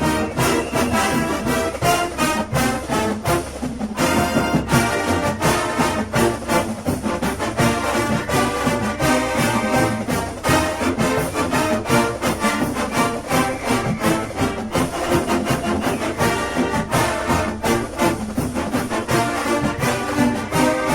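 School fight song played with brass over a steady beat.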